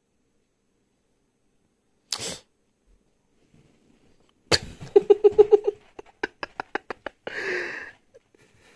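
A short sudden sneeze about two seconds in. Then a louder sudden burst comes, followed by a quick run of short pitched pulses, a few light clicks and a breathy burst near the end.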